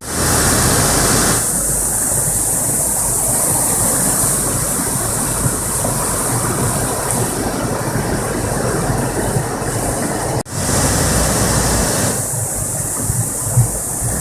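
Motorboat under way: its engine runs steadily under a constant rush of water and air noise. The sound cuts out briefly about ten seconds in.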